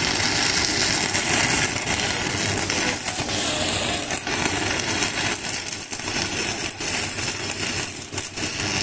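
Stick (MMA) arc welding from a Stanley Star-4000 mini DC inverter welder burning a 10-gauge electrode at full current: the steady crackling sizzle of the arc, broken by irregular sharp pops.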